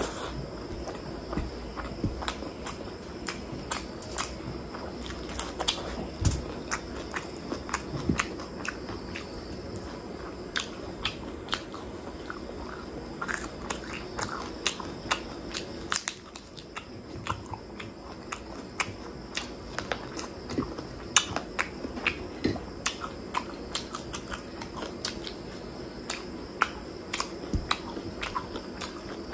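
Close-miked chewing and wet mouth sounds of a person eating chicken heart, liver and gizzard curry with rice by hand, with many short smacks and clicks as she chews.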